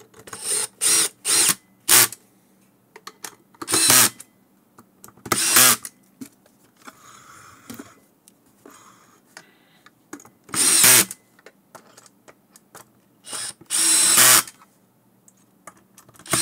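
Cordless DeWalt drill/driver running in a series of short bursts, each under a second, as it drives the cover screws into a motor controller's housing.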